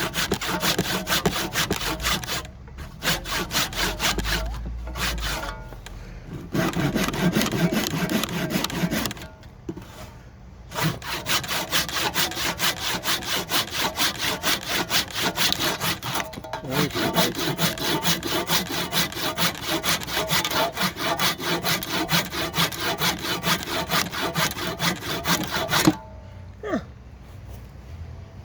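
Handsaw cutting through a cedar block in quick, even back-and-forth strokes, pausing briefly a few times. The sawing stops near the end with a single sharp knock.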